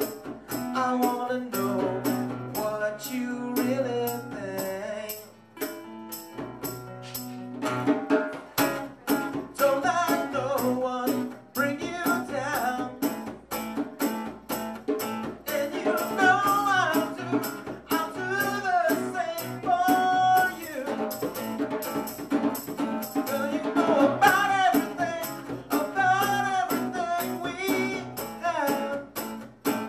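A live acoustic band: a strummed acoustic guitar and a drummer keeping a steady beat on drums and cymbal, with a man singing over them from about eight seconds in.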